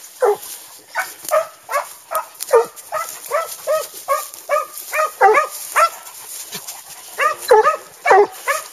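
A hound yelping repeatedly in short, high barks, about two a second, while running through the wood; the yelps pause briefly a little past the middle, then come in a quick cluster near the end.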